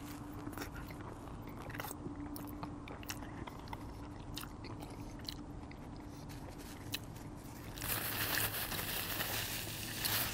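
Close-miked chewing of a mouthful of poutine (fries, cheese curds and gravy), with small wet mouth clicks. About eight seconds in, a louder rustle of a paper napkin as the hands are wiped.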